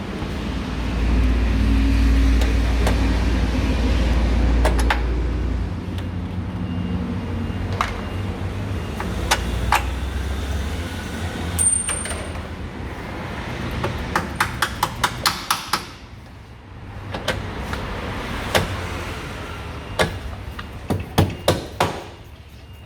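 Hammer blows driving a replacement control arm into place on a BMW E39's front suspension: a few single knocks, then quick runs of about eight strikes near the middle and again near the end. A low steady hum runs under the first few seconds.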